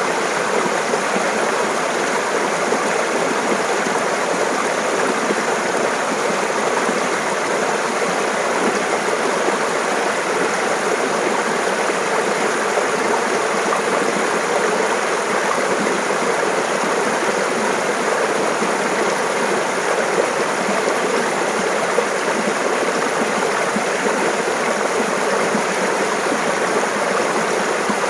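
Shallow mountain stream babbling and gurgling steadily over rocks.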